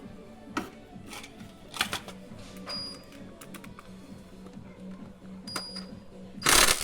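A series of sharp clicks and clinks, typical of hand tools on metal engine parts, over a steady low hum. A short loud burst of noise comes near the end.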